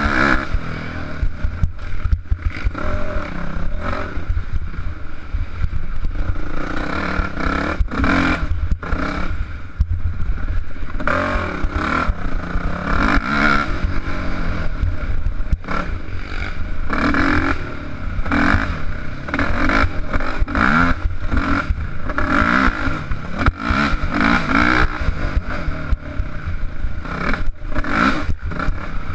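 Off-road dirt bike engine revving up and down over and over as it is ridden hard along a rutted trail, with steady wind rumble on the action camera and clatter from the bike over the bumps.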